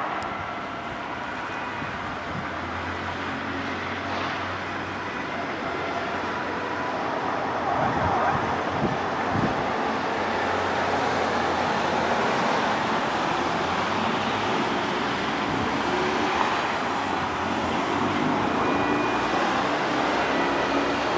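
Steady outdoor rumble of vehicle engines and traffic noise, with a low engine hum, growing slightly louder about eight seconds in.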